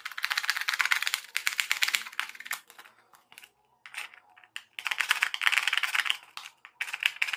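Knife tip scraping around the edge of a hole in a plastic jar lid as the lid is turned against it, widening the hole. The scraping comes as rapid clicking runs: one of about two and a half seconds at the start, another around five seconds in, and a short one near the end.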